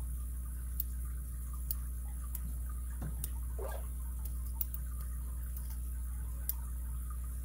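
Lock pick working inside a padlock: a handful of faint, irregular metallic clicks as the pins are set, over a steady low hum.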